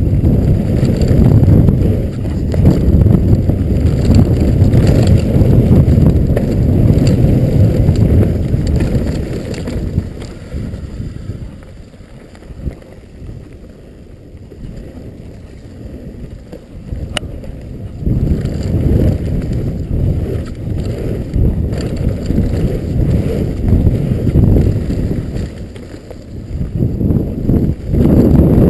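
Specialized Stumpjumper FSR mountain bike descending a dry, corrugated dirt trail: wind buffeting the camera microphone over a dense rumble and rattle from the tyres, chain and frame hammering over the bumps. It eases off for several seconds around the middle, with one sharp click, then comes back loud.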